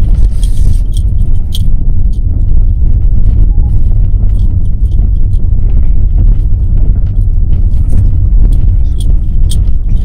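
A car on the move: a loud, steady low rumble of engine and road noise, with scattered light clicks and rattles.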